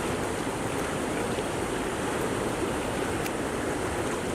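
Fast-flowing river water rushing through a narrow outflow, a steady noise that cuts off abruptly at the end.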